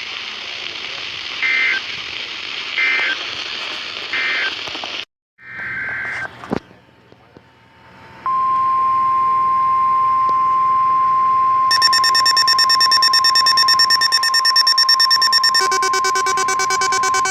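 NOAA Weather Radio alerting signals: three short warbling data bursts of the SAME digital code, then after a brief dropout another burst. About eight seconds in, the steady 1050 Hz weather radio warning alarm tone begins. A few seconds later a harsher pulsing electronic alarm joins it and shifts in pitch just before the end.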